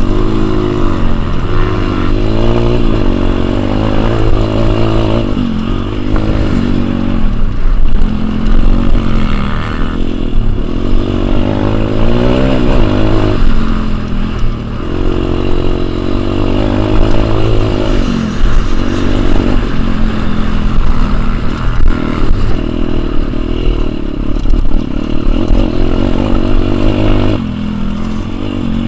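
Pit bike engine revving up and backing off over and over as it is ridden around a dirt motocross track, the pitch climbing then dropping every second or two through gear changes and corners.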